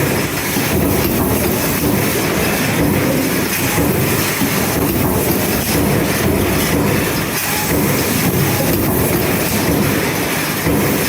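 Metal stamping press line running: the presses, shuttle transfer robots and belt conveyor make a steady, loud mechanical clatter and rumble.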